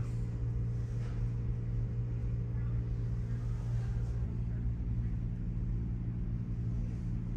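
Steady low hum made of several constant tones, with a slight change in its upper tones about four seconds in.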